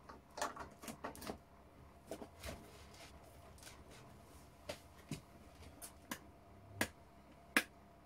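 Faint, scattered clicks and light knocks from hands handling a homemade disc sander's wooden table and switch box, with two sharper clicks near the end.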